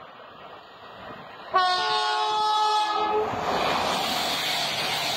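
CrossCountry Class 220 Voyager diesel train sounding its two-tone horn, both notes together, for about a second and a half, then passing through at speed with a loud steady rushing of wheels and air.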